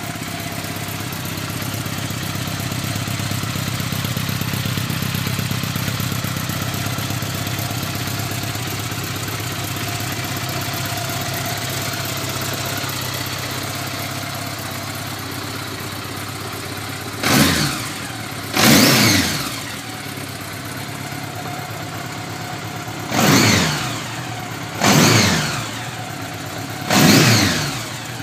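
A 1983 Honda GL1100 Gold Wing's flat-four engine idling steadily. Starting about two-thirds of the way in, it is revved in five quick throttle blips, each rising sharply and falling back to idle.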